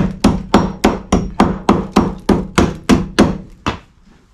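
A fast, even run of sharp blows on the Nissan Elgrand's steel bodywork, about three a second, stopping shortly before the end. The sills and wheel arches are being struck to test how far the rust has rotted the metal.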